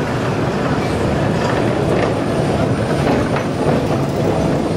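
Historic HTM tram and its trailer car rolling past on a curve: a steady rumble of steel wheels on the rails, with a few faint clicks.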